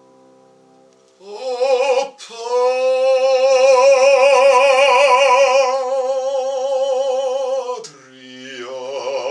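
Operatic bass-baritone voice with piano: a piano chord dies away, then the voice comes in about a second in and holds one long note with a wide vibrato for about five seconds. Near the end the voice moves to a new note as the piano comes back in underneath.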